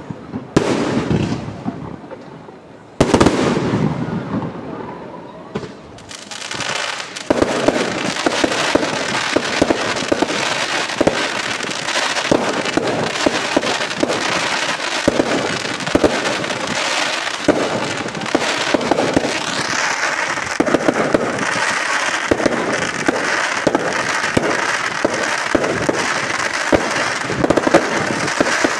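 Fireworks going off: a couple of single loud bangs in the first few seconds, then from about seven seconds in a dense, continuous barrage of rapid bangs and crackling.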